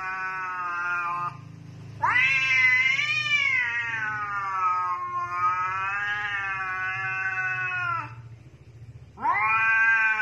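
A domestic cat yowling in long, drawn-out caterwauls. The first breaks off just over a second in. The second lasts about six seconds, rising and wavering at first and then holding steady. A third begins about a second before the end.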